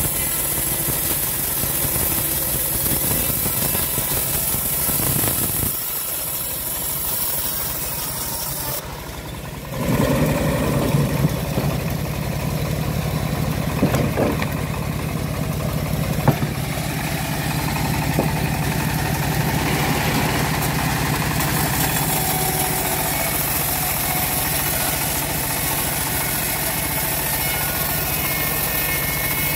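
Homemade bandsaw sawmill running and its blade sawing lengthwise through a large acacia log, a steady machine din. The sound drops for a few seconds and then comes back louder about ten seconds in.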